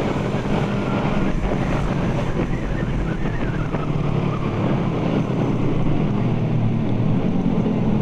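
Suzuki Satria F150 injection's single-cylinder four-stroke engine running steadily as the motorcycle slows in traffic, with wind buffeting the microphone.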